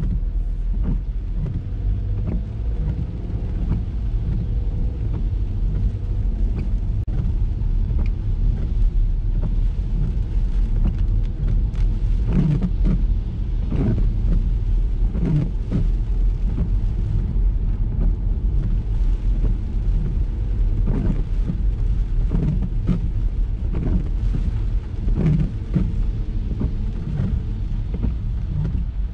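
Ford EcoSport driving on wet roads in the rain: a steady low rumble of road and engine noise, with many short knocks and taps scattered throughout.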